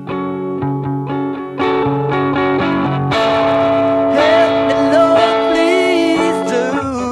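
Rock music led by guitar: chords at first, filling out into a fuller band about a second and a half in, with a wavering, sliding melody line through the middle.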